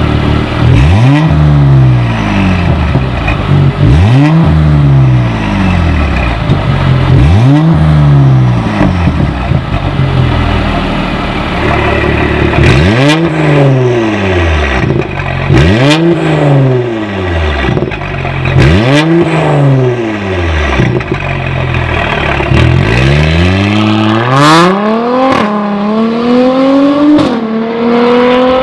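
Mercedes-AMG GLC43 Coupe's twin-turbo V6 through an Armytrix aftermarket exhaust, revved seven times while standing, each rev rising and falling back to idle, with a few sharp cracks among the later revs. About 24 seconds in it pulls away hard, the engine note climbing and dropping at each upshift.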